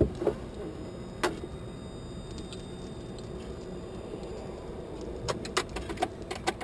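Light metallic clicks and jingling of ejection-seat safety pins on their lanyards being handled and fitted into the seat: a single click about a second in, then a quick run of clicks near the end, over steady background noise.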